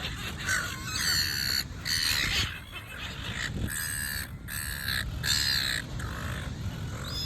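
Seagulls calling: a string of short calls, each about half a second long, following one another.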